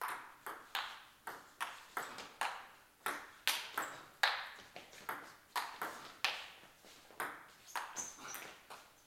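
A long table tennis rally: the celluloid ball clicks off pimpled-rubber paddles and bounces on the table, about three sharp clicks a second, each with a short echo.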